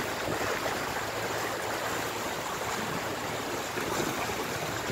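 Steady rush of water along the hull of a moving open river cruise boat, an even noise with no breaks.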